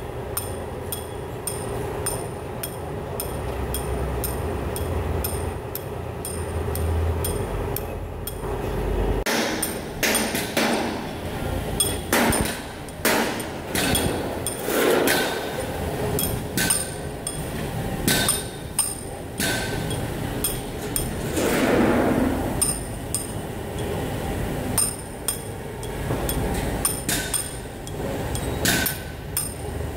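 Repeated hammer taps and metallic clinks in a truck repair workshop, with a steady low hum under the first third and heavier knocks after it.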